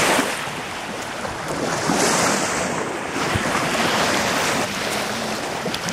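Steady rushing noise of wind buffeting the microphone, swelling a little about two seconds in.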